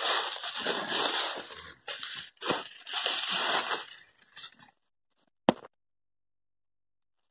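Dry grass, leaves and twigs rustling and scraping against the phone and its microphone as it is pushed through brush, in several bursts with short breaks. A single sharp click comes about five and a half seconds in, and then the sound cuts to dead silence.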